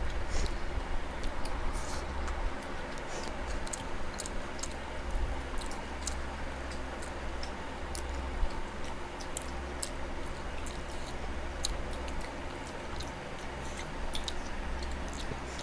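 Close-up chewing of food, with many small, irregular wet mouth clicks and smacks, over a steady low hum.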